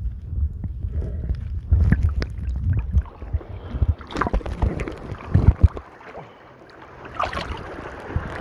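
Water noise on a snorkelling camera: a low, muffled underwater rumble, then splashing and sloshing with sharp knocks from about four seconds in, as the camera moves at the water's surface.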